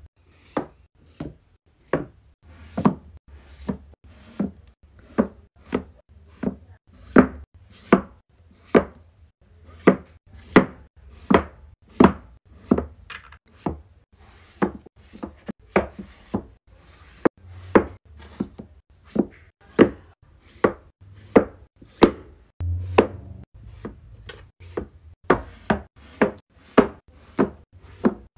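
Paperback books tapped, nudged and set down on a shelf: a steady run of sharp taps and knocks, often one or two a second.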